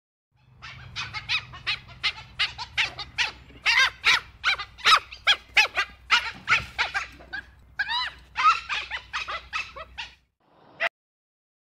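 Dhole (Asian wild dog) giving a rapid series of short squeaking, whistling calls, about four a second, each bending up and down in pitch, over a low steady hum. The calls start about half a second in and stop a little over a second before the end.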